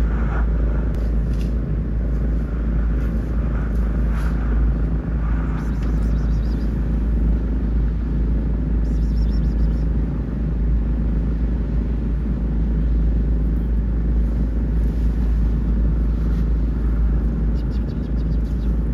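A steady low rumble with no clear events in it.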